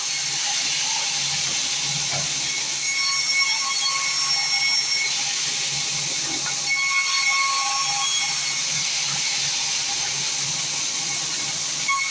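Sawmill saw running through timber: a steady hissing cut with a faint high whine, slightly louder between about three and eight seconds in.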